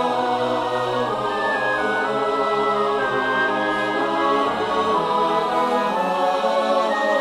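Background music: a choir singing long, slowly changing held chords.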